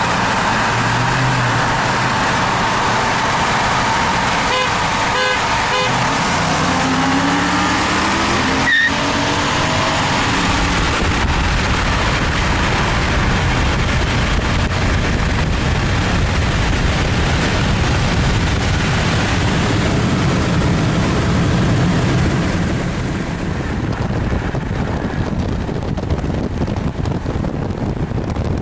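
Cars accelerating hard side by side at speed, engines pulling up through the revs under heavy wind and road noise, with a rising engine note about six to ten seconds in. A short run of horn toots comes about five seconds in, and the noise eases off a little about twenty-two seconds in.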